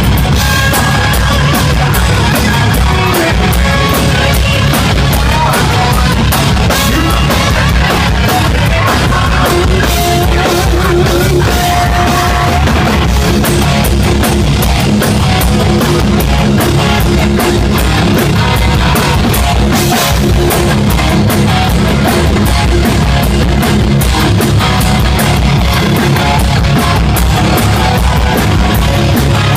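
Live hard rock band playing loud: electric guitar and drum kit, with held guitar notes in the middle.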